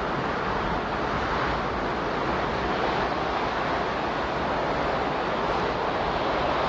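Steady, unbroken rushing noise with no swells or changes: the masking sound bed of a subliminal track, under which the affirmations are hidden.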